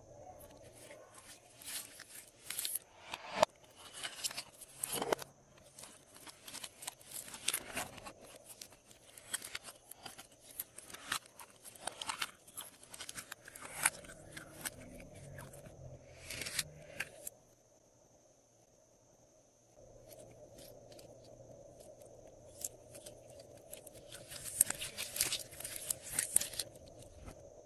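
Glossy slime being worked by hand, a dense run of small wet clicks and pops as it is pressed and stretched, stopping for about two seconds a little past the middle before starting again.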